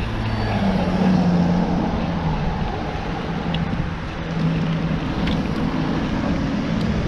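Rush-hour road traffic on a busy urban road: motor vehicles running close by, with a steady low engine hum over the noise.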